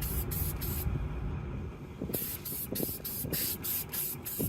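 Aerosol can of olive drab spray paint sprayed in short quick bursts, about four a second. The bursts stop for about a second just after the start, then resume.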